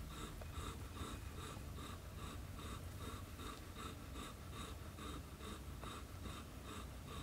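Newborn kittens suckling at the mother cat: a soft, regular sucking pulse about twice a second over a low steady hum.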